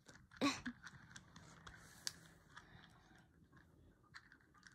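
Faint scattered clicks and ticks of small plastic beads being picked out of and handled over a compartmented plastic storage box, a sharper click about two seconds in. A brief voice sound about half a second in is the loudest thing.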